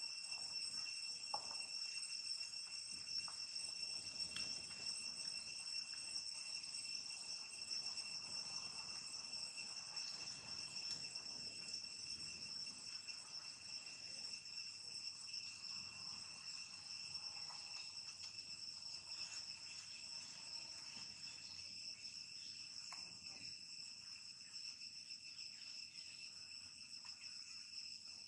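Steady insect chorus, a drone held in several high pitches throughout, with faint crinkles and ticks of a plastic bag being handled in the first half.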